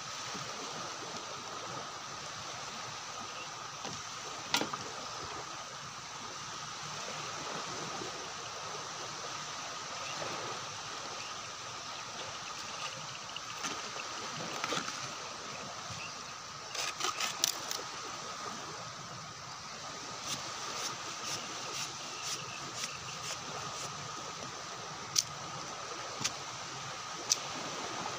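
Night-time camp ambience: a steady rushing hiss like running or falling water, with a constant high insect-like drone over it. Scattered sharp clicks and taps come through it: one about four seconds in, a quick cluster about two-thirds of the way through, and several more singly near the end.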